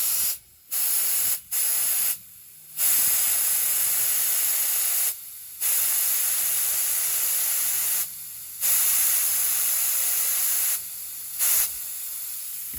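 Compressed air hissing through an air chuck into a zero-turn mower's tubeless tire at the valve stem, in several long bursts with short pauses, as the flat tire is inflated to about 20 psi.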